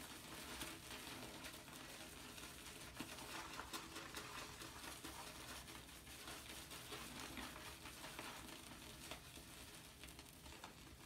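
Shaving brush swirled and pressed into a tub of shave soap, building lather: a faint, wet, irregular crackling of bristles and foam with light ticks.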